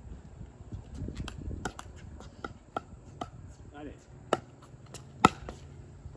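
Pickleball rally: a string of sharp, hollow pops as paddles strike the plastic ball, roughly one every half second to a second. The loudest hit comes about five seconds in.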